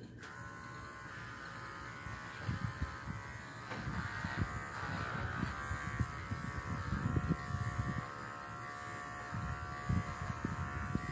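Electric dog-grooming clippers switched on, then buzzing steadily as they cut through a standard poodle's coat, with irregular low bumps from handling.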